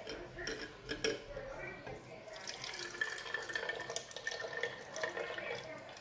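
Boiled water poured from a measuring cup into a plastic baby feeding bottle, a steady trickle that starts about two seconds in.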